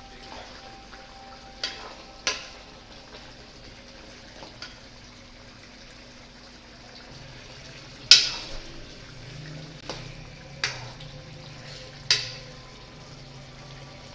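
Chicken curry simmering and bubbling in a metal pot, stirred with a spoon that knocks sharply against the pot's side about seven times, loudest about eight seconds in.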